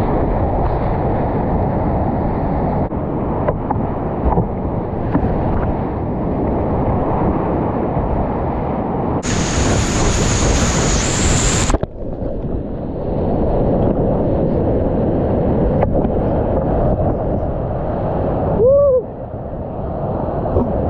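Loud, steady rush of whitewater rapids heard from a kayak running them, with water splashing around the boat. Around the middle a hiss and a steady high whine join in for about two and a half seconds, and a brief pitched sound bends up and down near the end.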